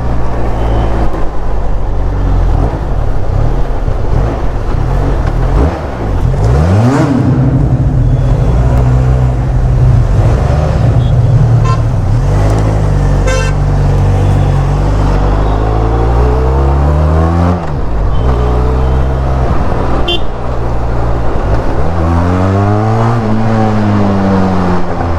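Benelli TRK 502's parallel-twin engine and exhaust revving up and dropping back several times while riding, the pitch climbing as it accelerates and falling as the throttle closes. Short car horn toots sound from surrounding traffic.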